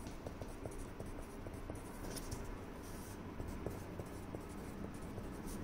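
Pencil scratching on paper as a word is written out by hand, faint and continuous.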